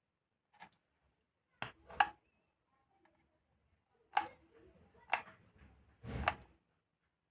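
A handful of light knocks and clicks from speaker parts being handled and set down, about six in all, with a duller thud near the end.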